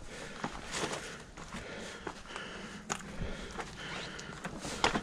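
Hiking footsteps crunching on a rocky trail of loose stones and leaf litter, irregular steps with a sharper scrape of a boot on stone near the end.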